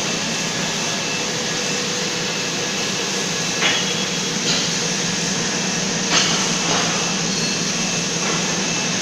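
Steady hum of machinery in a welding and fabrication shop, with three short metallic clanks: one about three and a half seconds in, one near four and a half, and the loudest just after six seconds.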